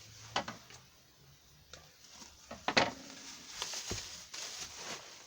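Wrapped packing being handled and pulled at, with scattered short crinkles and clicks and a sharper snap about two and a half seconds in, then a dull knock a second later.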